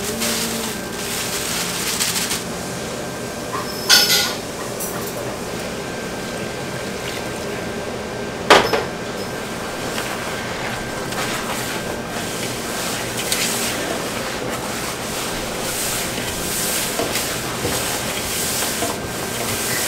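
Sugar and seasoning powder being mixed by gloved hand in a stainless steel pot: a steady gritty scraping against the steel, with two sharp metal knocks about four and eight and a half seconds in.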